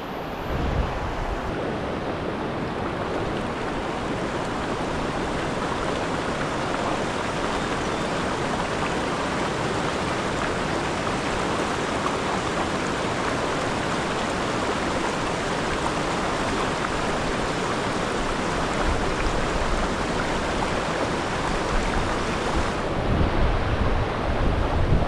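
Rushing river water over rapids, a steady wash of noise, with some low rumbling near the end.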